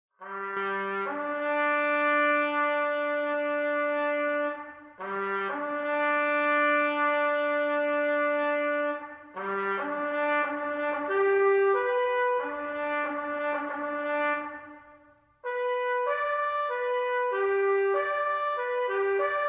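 Background music with a brass melody. It begins out of silence just after the start and plays a couple of short notes leading into a long held note, three times over, then a quicker run of changing notes from about two-thirds of the way through.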